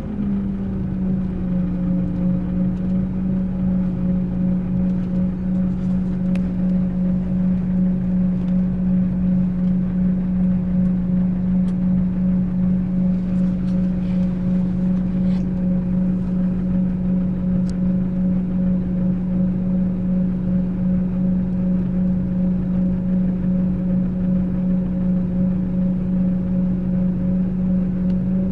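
Scania K380 coach's rear-mounted diesel engine idling steadily with a constant hum and a slight regular throb.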